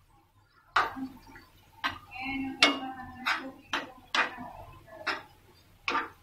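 Plastic spoon stirring a wet onion mixture in a non-stick pan, knocking and scraping against the pan about eight times at an uneven pace.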